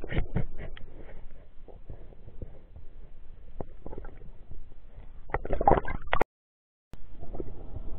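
Muffled underwater gurgling and water rush against a camera housing, broken by irregular clicks and crackles. It swells to a louder gurgling stretch near the end, then drops out abruptly for about half a second.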